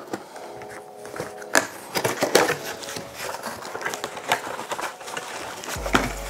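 Cardboard box flaps and foam packing pieces being handled and shifted by hand: irregular rustling, scraping and sharp knocks.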